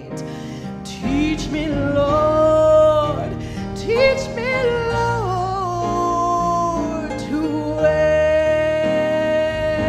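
A woman singing a slow worship song into a microphone, accompanied by guitar and keyboard. Her voice slides between notes and holds one long note over the last two seconds.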